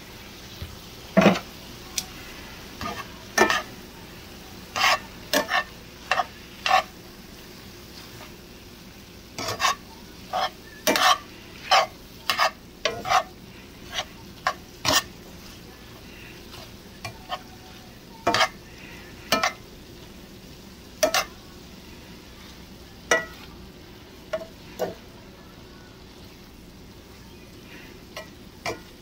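Metal tongs clacking irregularly against a black skillet as chicken, bell peppers and onions are tossed, over a steady sizzle of frying.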